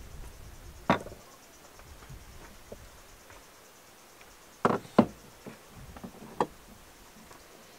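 Cookware handled on a wooden table: a sharp knock about a second in as a pan is set down, then two loud knocks close together in the middle as the lid is lifted off a clay cooking pot, and a smaller knock soon after as the lid is set down.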